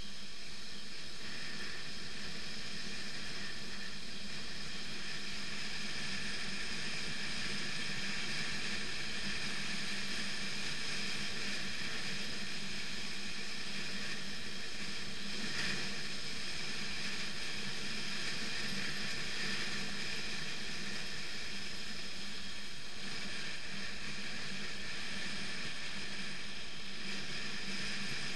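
BMW F 650 GS motorcycle riding at a steady pace, its engine running evenly under a constant hiss of wind and road noise.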